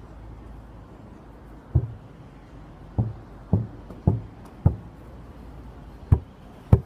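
A ball thudding about seven times: single dull hits, four of them in a quick run roughly half a second apart in the middle, then two more near the end.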